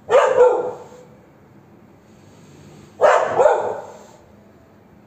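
Street dog barking at a cat: two loud outbursts about three seconds apart, each two quick barks.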